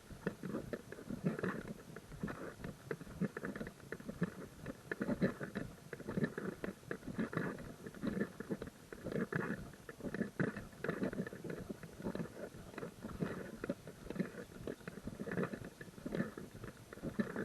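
Footsteps of a hiker walking steadily on a crushed-gravel trail, a step about every second.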